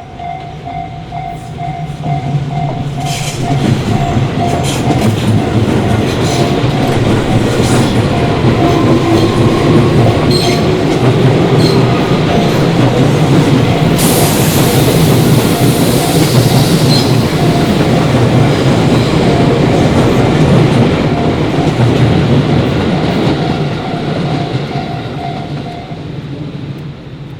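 Level-crossing warning bell ringing in a steady, evenly repeating ding while a Tobu Tojo Line electric train passes through the crossing, wheels clacking over the rail joints. The train noise builds a few seconds in, is loudest through the middle and fades near the end, and the bell stops just before the end.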